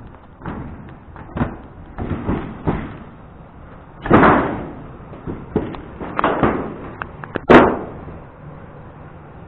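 Footsteps on a sheet-metal roof: a run of irregular thuds and bangs on the metal, the two loudest about four and seven and a half seconds in.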